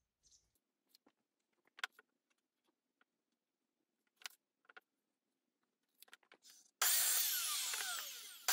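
A few light knocks and clicks as timber is handled, then, about seven seconds in, a sliding mitre saw cuts into the timber: a sudden loud blade-and-motor noise that falls in pitch as the blade bites, with a second surge near the end as it cuts a 45-degree mitre.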